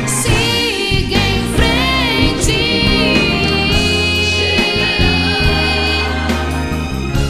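Christian gospel worship song playing: held, wavering melody notes over band accompaniment with a steady bass.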